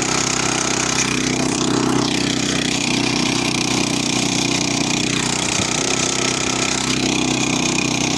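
Two-wheel tractor's small engine running at a steady speed while the machine drives along, an even, unbroken engine note.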